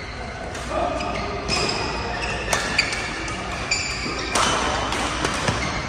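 Badminton rally: several sharp racket-on-shuttlecock hits and short high squeaks of court shoes on the mat, over the echoing background of a large sports hall.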